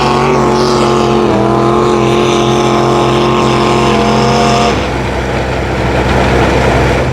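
Antique threshing machine running, a steady droning hum with many even tones; the pitch steps about a second in, and near five seconds the hum breaks up into a rougher rumble.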